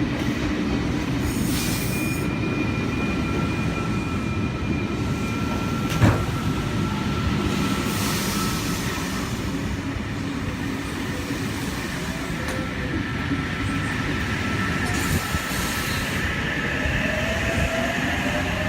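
V-set electric passenger train rolling slowly alongside the platform as it comes to a stop, with steady high-pitched wheel and brake squeal. A sharp clunk comes about six seconds in, and short bursts of hiss come at intervals. A rising whine starts near the end.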